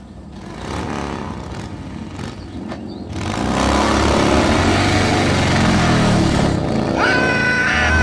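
Motor vehicle engines running, getting louder about three seconds in and staying steady, with a held high tone joining near the end.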